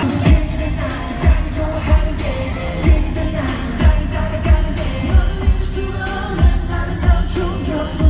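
K-pop dance track with a singing voice, played loud through an arena's concert sound system. A heavy kick-drum beat hits about twice a second.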